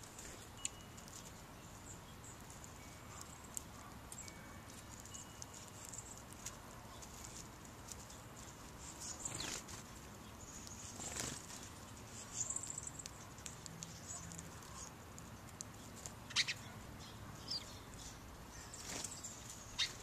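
Small songbirds feeding on seed on the ground: scattered short, high chirps and ticks, with a few sharper calls about halfway through and the loudest ones in the last few seconds.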